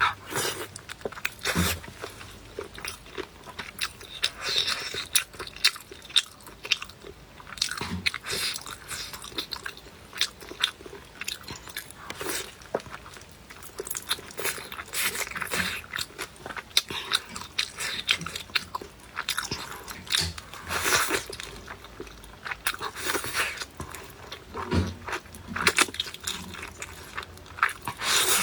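Close-miked eating: a person biting and chewing food with repeated crunches and mouth sounds.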